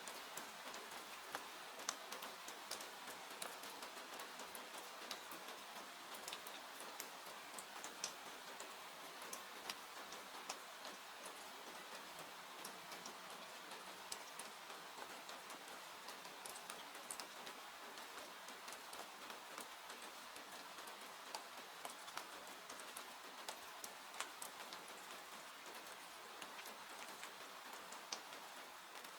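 Steady rain, faint and even, mixed with the irregular sharp crackles and pops of a wood fire burning in a fireplace.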